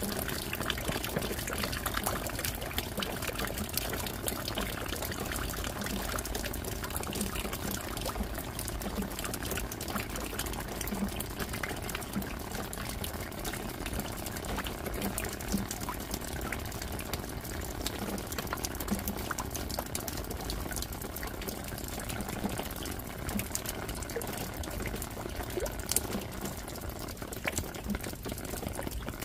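Steady rain falling, with many small irregular drop hits and drips ticking through the even hiss.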